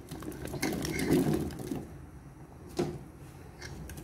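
Cubed radish, carrot and potato pieces tumbling out of a plastic colander and dropping into a pot of boiling dal: a rapid run of clattering and plopping for about the first two seconds, then a single knock nearly three seconds in.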